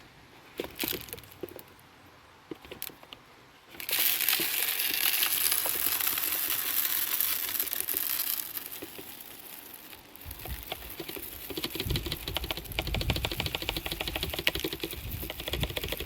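Rustling and crinkling handling noise, with a few clicks at first. It turns into a loud rushing rustle about four seconds in. After that comes a low rumble with fast pattering ticks over the last several seconds.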